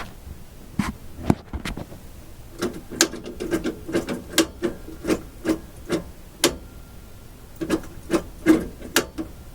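Signal generator's controls being worked by hand to tune it to 460 kHz: a run of sharp clicks, two or three a second, with a short pause about two-thirds of the way through.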